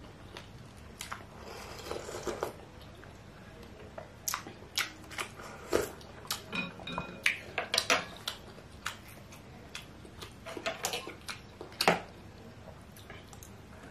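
Close-up eating sounds of bakso meatball soup: chewing and slurping broth, with a run of short sharp clicks and smacks. The clicks include a spoon tapping a ceramic bowl and, near the end, a fork knocking the plate as it cuts a meatball.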